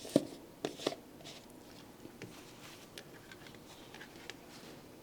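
A few light clicks and knocks of kitchen utensils against a bowl or counter, three of them within the first second, then scattered fainter ticks.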